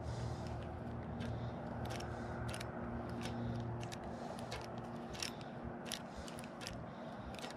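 Spinning reel being cranked in a slow lure retrieve, giving irregular light clicks about every half second. A low steady hum sits under the first half and fades out about four seconds in.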